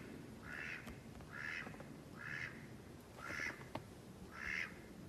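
A pet duck quacking repeatedly and faintly, six short quacks at about one a second. The duck is agitated after being separated from its owner.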